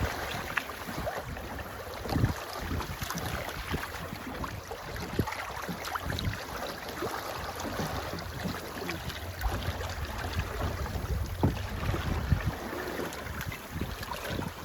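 Wind buffeting the microphone on a sailing boat underway, over a rushing wash of water, with a few louder gusts.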